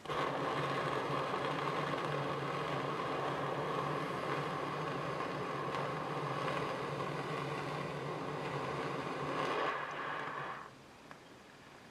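Jeweller's blowpipe torch burning with an intense flame: a steady hiss with a low hum in it that starts abruptly, swells briefly near the end and dies away about ten and a half seconds in.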